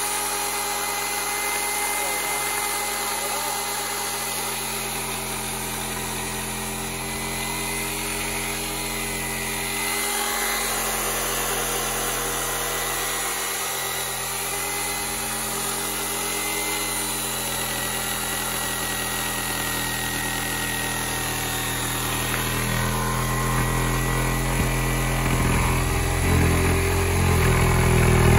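Erbauer ERS1100 corded reciprocating saw running continuously, its blade cutting through an old, tough timber sleeper. The motor note holds steady and gets louder near the end.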